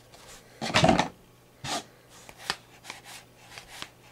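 Glossy football trading cards being flipped through by hand, slid off the stack one at a time. A series of short papery swishes and snaps, the loudest about a second in.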